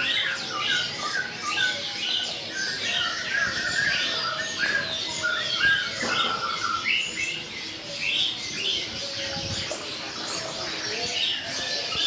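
A chorus of caged birds chirping and squawking, with many short high calls overlapping without a break.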